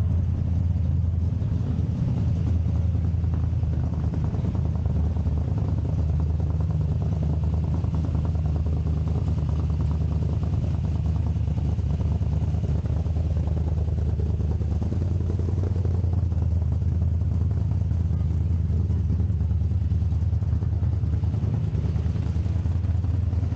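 Engine idling with a steady, low, even rumble.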